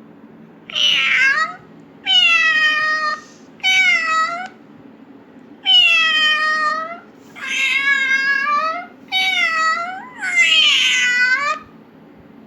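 A domestic cat meowing seven times in a row, each meow about a second long with short pauses between.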